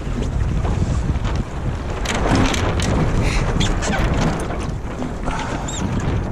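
Wind buffeting the microphone in a steady low rumble, with water splashing and slapping against a small wooden sailboat's hull from about two seconds in.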